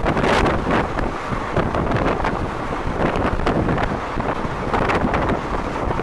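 Wind buffeting the microphone at the open door of a moving passenger train, in irregular gusts over the steady noise of the train running along the track.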